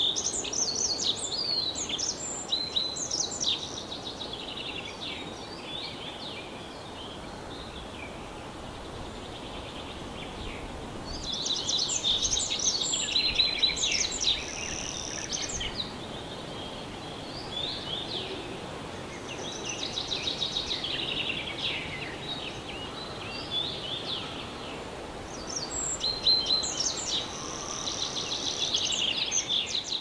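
Tree pipit singing: several song phrases of rapid trills and quickly repeated notes, each a few seconds long with pauses between, over steady background noise.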